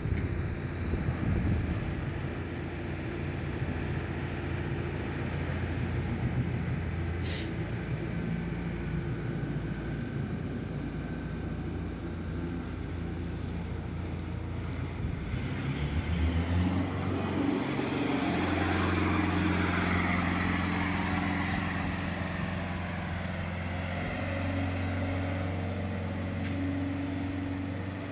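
A rescue boat's engine running steadily, with water rushing. About halfway through the engine note changes, and the rush of water grows louder as the boat speeds away.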